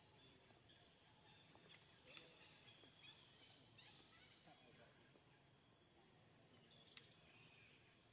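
Near silence: a faint, steady, high-pitched insect drone, with a few faint ticks and short chirps.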